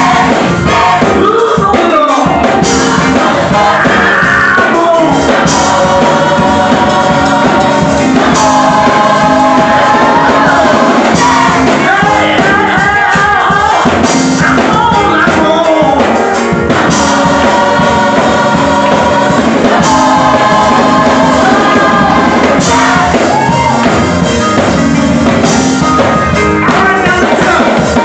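Youth gospel choir singing loudly in full voice with instrumental accompaniment, a strong accent about every three seconds.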